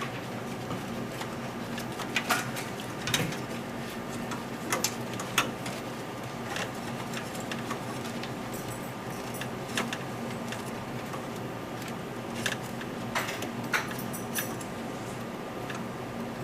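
Scattered clicks, taps and light clatter of small hardware being handled while a power supply is removed and replaced, heard over a steady low hum. The clicks come in clusters, about two seconds in and again near the end.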